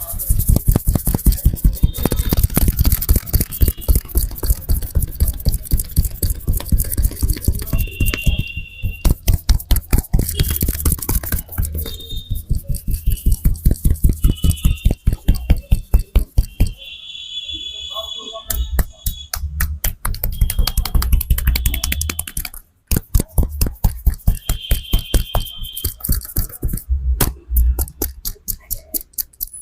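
A barber's hands slapping and chopping rapidly on a head in a percussion-style head massage: quick, even runs of sharp slaps, several a second, with short pauses between runs.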